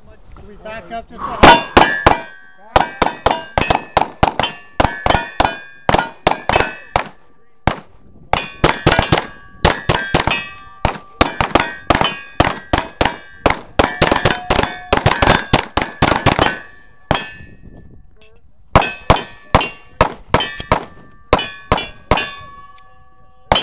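Semi-automatic pistol fired in quick strings of several shots a second at steel plate targets, each shot followed by the ring of struck steel. There are short pauses between strings, the longest near the end.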